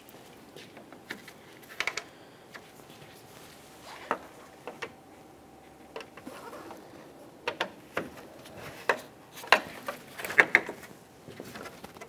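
Small clicks and taps of a Phillips screwdriver working plastic push clips on a truck grille, turning them clockwise to lock them in. The sharp ticks are scattered, and the loudest cluster comes about ten seconds in.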